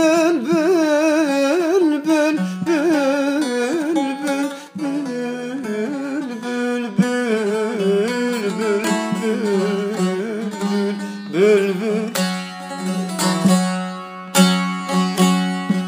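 Turkish folk song music. A wavering sung line trails off over the first few seconds, then an instrumental interlude follows: a plucked string instrument playing a melody over a steady low drone, breaking into quick repeated picked notes near the end.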